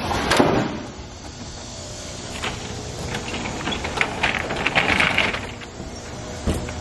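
Handling noises while loading: a knock as a bar stool is pushed into a car's back seat, then metallic rattling and scraping as the rear door and latch of a rental box truck are worked, with a thump near the end.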